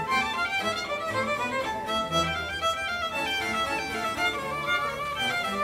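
Background instrumental music, a quick melody of many short notes over accompaniment.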